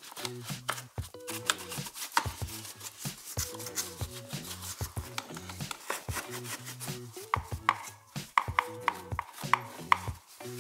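Stiff-bristled paintbrush scrubbing dust off a plastic and felt car trim panel in quick, repeated strokes, over background music with a repeating low melody.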